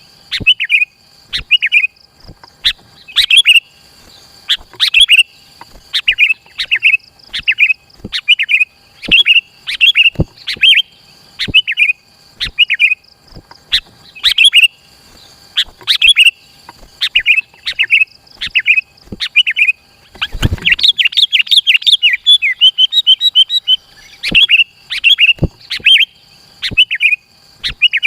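Sooty-headed bulbul (kutilang) singing loudly in short, bubbly repeated phrases, about one a second, with a quicker run of chattering notes about three-quarters of the way through. A single low thump comes about two-thirds of the way in.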